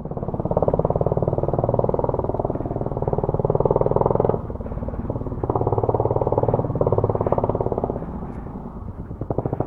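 Motorcycle engine running at low speed with a rapid, even pulse. It is louder in stretches of a few seconds, dips about four seconds in, and drops again near the end.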